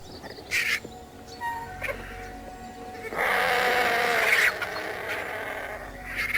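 Vultures feeding at a carcass give harsh hissing calls: two short ones early, a loud hiss lasting over a second in the middle, and a short one at the end, over soft background music.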